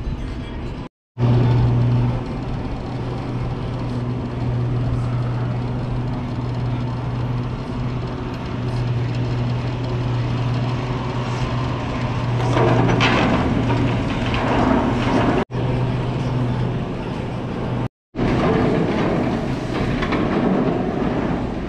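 Steady low drone of a vehicle in motion, engine and road noise, cut off abruptly for a moment three times.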